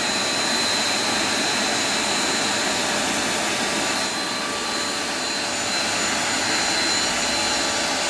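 Deerma DX118C 400-watt corded stick vacuum cleaner running steadily at full suction: a quite loud, constant rush of air with a high, steady motor whine.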